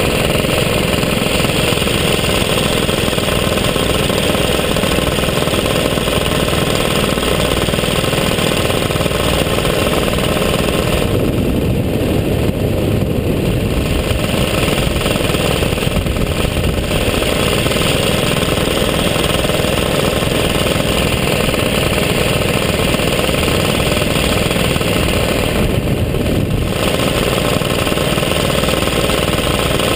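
120cc paramotor engine running steadily in powered flight, with a few brief dips in its upper tones.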